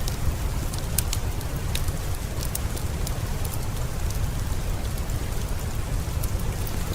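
Heavy rain falling steadily with a deep low rumble, mixed with a fireplace crackling: irregular sharp pops, most of them in the first half.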